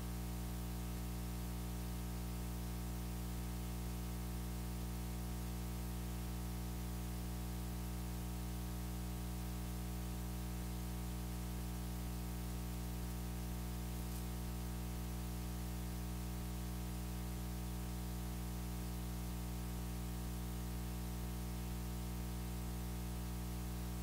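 A steady electrical hum with a buzz of many overtones over constant hiss, unchanging throughout.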